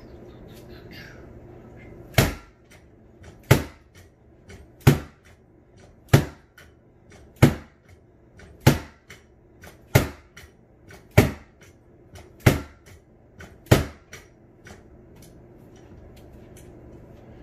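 A taped rattan SCA sword striking a freestanding vinyl punching bag as a pell, ten sharp hits about 1.3 seconds apart, starting about two seconds in and stopping near the end.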